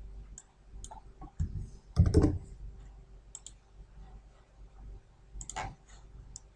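Computer mouse clicking several times, with one louder thump about two seconds in.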